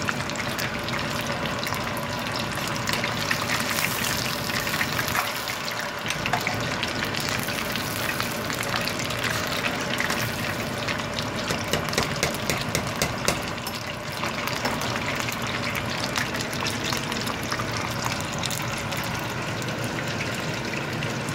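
Battered fish deep-frying in a pot of hot oil: a steady sizzle, thick with fine crackles and pops.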